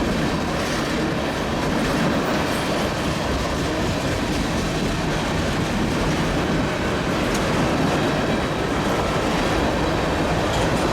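Iowa Northern freight cars rolling past close by: a steady, loud rumble of steel wheels on rail.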